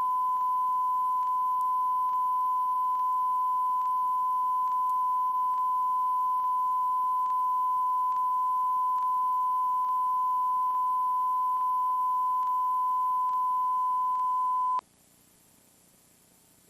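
A steady, loud high-pitched beep tone from the end of a VHS tape, with faint regular clicks about twice a second. The tone cuts off suddenly near the end, leaving only faint tape hiss.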